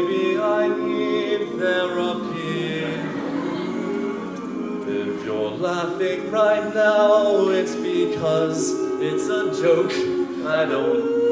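All-male a cappella group singing with no instruments, several voices in chords behind a lead, holding sustained notes.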